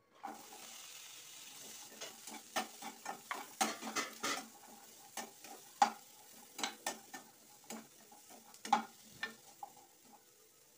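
Pumpkin, field beans and sweet potato tipped into a hot nonstick kadai of fried masala, setting off a sudden sizzle. They are then stirred with a spatula: a run of sharp scrapes and knocks against the pan over the sizzling.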